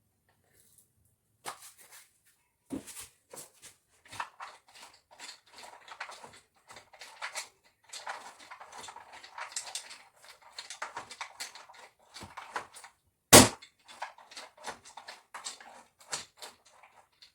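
Kitchen handling noise: irregular clicks, taps and knocks of containers and cookware being moved about, with one loud knock about 13 seconds in.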